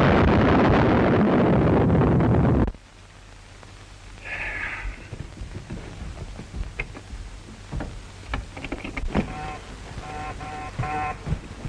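Film sound effect of a glider crashing: a loud rushing crash noise that cuts off abruptly after nearly three seconds. Fainter clatter and a few short high beeps follow.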